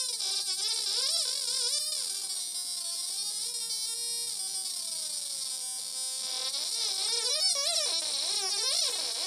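Atari Punk Console synth kit with two photosensors sounding a single electronic tone whose pitch wobbles and glides up and down, holding steadier for a few seconds in the middle, as the hands shade its photosensors and turn its knobs.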